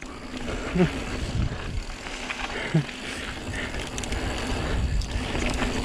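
Santa Cruz Megatower enduro mountain bike descending a dirt flow trail at speed: tyres rolling over packed dirt and loose gravel, with the bike rattling and rumbling. Two brief squeaks come about a second in and again near three seconds.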